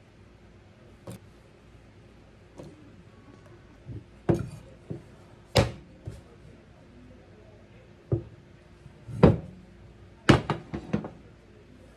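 Glass loaf dish turned upside down onto a wooden cutting board and lifted off a baked brownie: a series of sharp knocks of glass against wood, with a quick cluster of knocks near the end.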